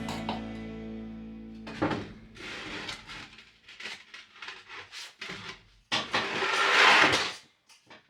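Background music that ends about two seconds in, followed by irregular metallic clatter and scraping, with the loudest, longest scrape near the end.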